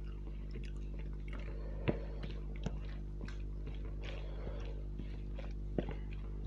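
Person chewing and eating a mouthful of rice and fish curry, with scattered small clicks and smacks, the sharpest about two seconds and six seconds in, over a steady low hum.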